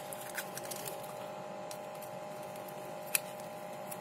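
A few small clicks and taps from handling an opened laptop power adapter and its metal shield, with one sharper click about three seconds in, over a steady faint hum.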